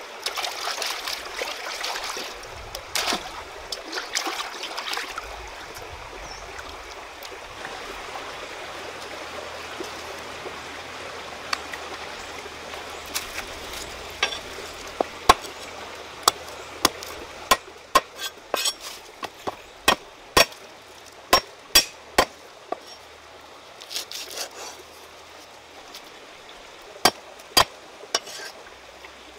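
Water swishing and splashing as a metal pan is rinsed by hand in a stream, over the steady running of the stream. From about halfway in, a series of sharp knife strikes on a wooden chopping board, the loudest sounds, come singly and in quick runs.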